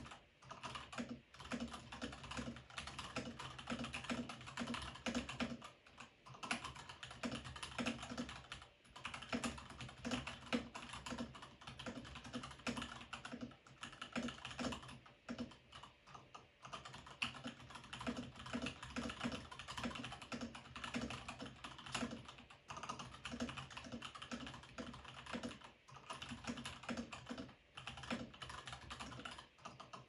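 Continuous fast typing on an IQUNIX A80 mechanical keyboard with Gateron Yellow linear switches and its stock spacebar: a dense run of key clacks broken by a few short pauses.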